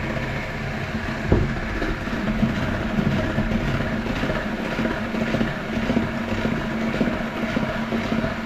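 Electric hand mixer running steadily, its beaters working a dough as more flour goes in, with one sharp knock about a second in.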